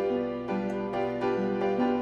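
Background instrumental music: a steady run of held notes, changing about every quarter to half second.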